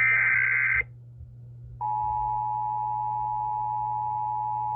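Emergency Alert System tones: the last burst of the SAME digital header, a harsh data screech just under a second long, then a gap of about a second, then the steady two-tone EAS attention signal starting near two seconds in and holding to the end.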